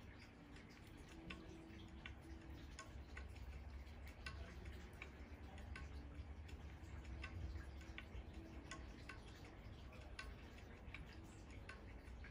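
Faint ticking, about two ticks a second and not quite even, over a low rumble.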